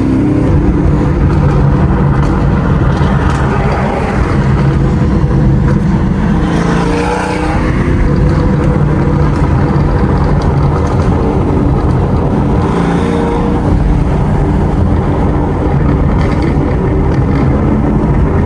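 Chevrolet Camaro 2SS V8 running loud and steady while driving, its engine note shifting up and down with the throttle a few times.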